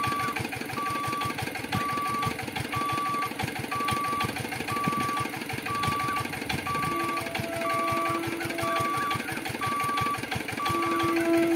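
Level-crossing warning beeper sounding about once a second, each beep about half a second long, over a steady fast rattle. The approaching EMU local train's horn sounds faintly about seven seconds in and again, louder, near the end.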